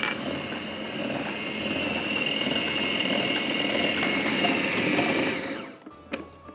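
Electric food processor running steadily with a whining motor, then switched off about five and a half seconds in, its pitch falling as it winds down.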